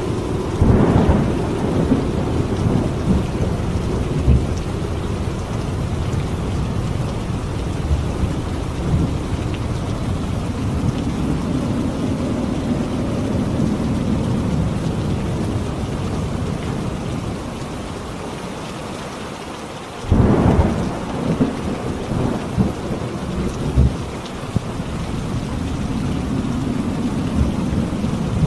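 Steady rain with thunder: a thunderclap breaks about a second in and rumbles on, and a second clap crashes about twenty seconds in.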